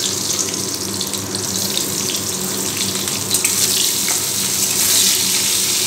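Eggplant pieces frying in hot mustard oil in a kadai: a steady sizzle with scattered crackles.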